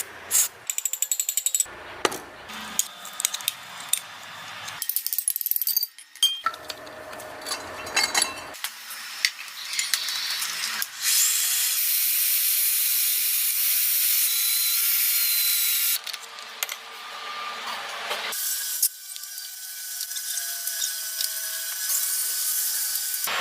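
A run of short workshop clips: metal clinks, clicks and ratcheting from hand tools working on metal parts, with a stretch of steady hiss in the middle.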